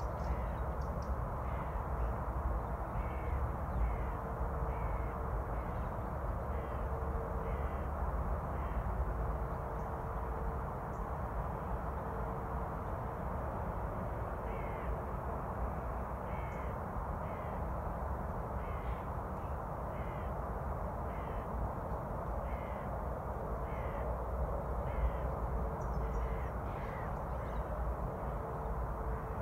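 Crows cawing, short calls repeated in runs of several at a time, over a steady low rumble.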